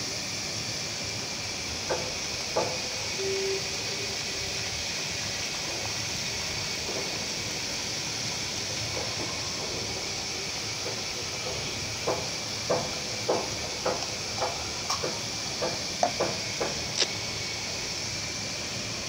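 Sliced gourd frying in oil in a pan with a steady sizzle. About two seconds in come two sharp knocks as an egg is cracked into the pan. Near the end a run of about ten quick clicks of a metal spatula knocking against the pan.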